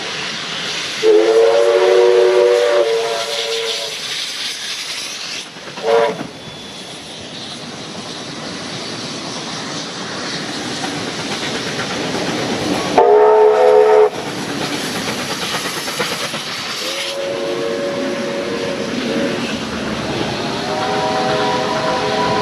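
Steam locomotive chime whistles blowing repeatedly as four steam locomotives pass on parallel tracks: a blast about a second in, a short toot near six seconds, a higher blast around thirteen seconds, another about seventeen seconds in, and a long one starting near the end. Beneath them runs the continuous rumble and exhaust of the passing trains.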